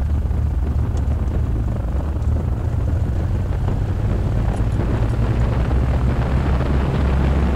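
Cessna 182 Skylane's piston engine and propeller running steadily at low power on the ground, a constant low drone heard from inside the cabin.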